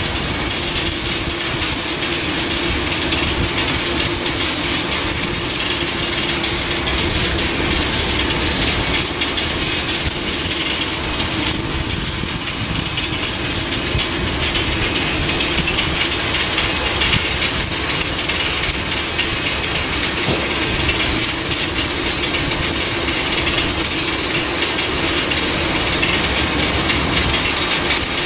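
Steady jet whine and rushing noise from a Boeing 747-400 as a tug pushes it back, with a constant high whine and a low hum over the roar.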